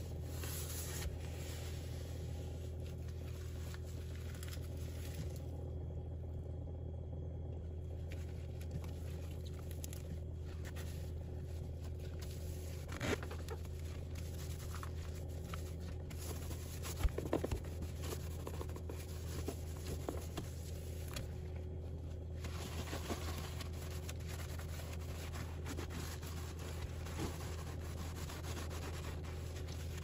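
A cloth wiping and rubbing across the plastic floor of a freezer compartment, with a few light knocks, over a steady low hum.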